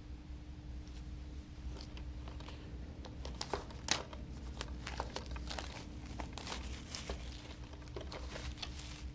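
Plastic packaging crinkling and crackling as it is handled and opened, with a few light crackles at first, then busier from about three seconds in and a sharp snap near four seconds. A low steady hum runs underneath.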